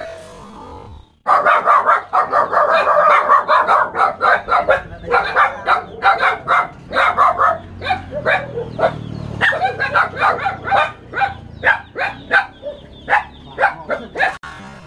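Small black dogs barking at a stuffed toy tiger, a fast, unbroken run of sharp yaps, several a second, starting about a second in.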